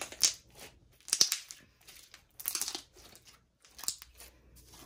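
Foam-soap slime being squeezed by hand so its trapped air bubbles pop: about four short crackling, squelching bursts with pauses between.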